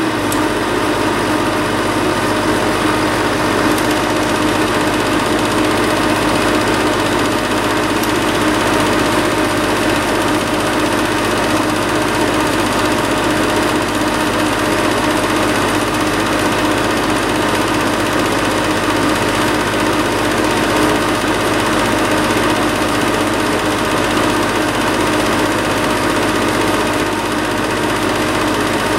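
Home-movie film projector running, a steady mechanical whir with a constant hum.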